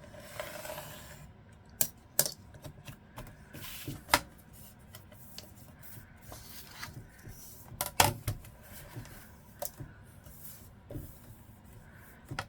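Lined paper and a ruler being handled on a work table: soft rustling of paper with scattered sharp taps and clicks, the loudest about two-thirds of the way through.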